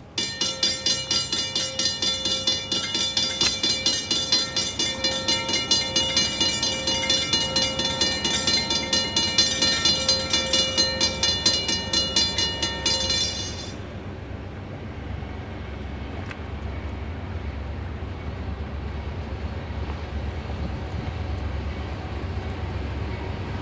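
Railroad warning bell clanging in a fast even rhythm, about three strokes a second, stopping suddenly about fourteen seconds in. After that comes the low rumble of the approaching freight train, slowly growing louder.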